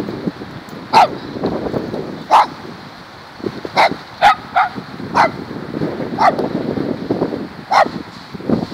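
A dog barking in short, sharp single barks, about eight of them at irregular intervals, with a quick cluster of three near the middle.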